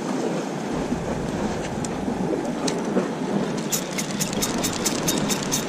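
Steady wind and sea noise on an open breakwater, with a quick, even run of light ticks from about four seconds in to near the end.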